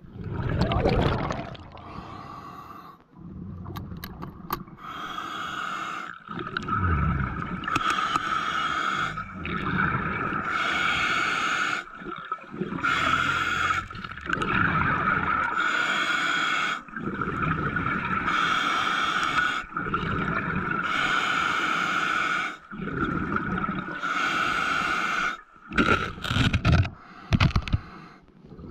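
A scuba diver breathing through a regulator underwater: hissing breaths alternate with gurgling rushes of exhaled bubbles, a cycle every couple of seconds.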